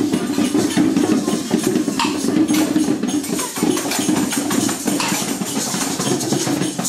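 Classroom din of many children playing hand percussion at once: maracas, tambourines and other shakers rattling and clicking without pause, over general hubbub.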